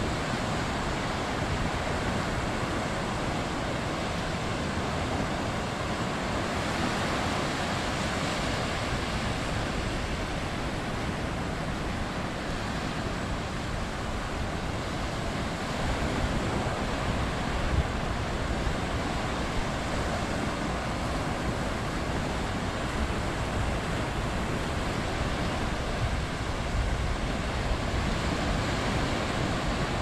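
Surf on a flat sandy beach: small waves breaking and washing up the shore in a steady, unbroken rush, with a few deeper, louder surges in the second half.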